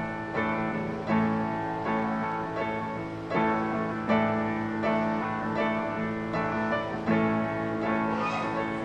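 Instrumental background music: a gentle melody of plucked notes at an even pace.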